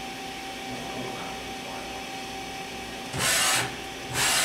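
KIWA KNH-426X horizontal machining center running with a steady hum and tone while its slides jog, then two short, loud rushing bursts of noise, one about three seconds in and one at the very end, as the axes make quick moves.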